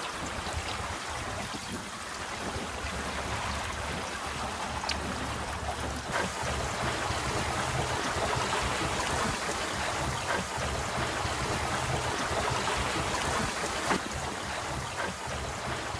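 Water rushing and gurgling along the hull of a small wooden sailing dinghy under way, a steady wash with a few light knocks from the boat.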